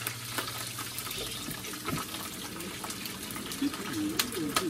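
Raw shrimp frying in hot oil in a pan: a steady sizzle broken by sharp, irregular pops and crackles of spattering oil.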